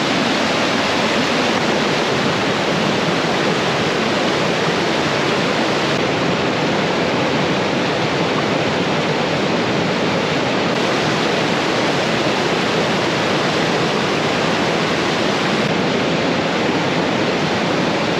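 Steady, loud rushing roar of a three-tiered waterfall falling close by, an even noise with no breaks.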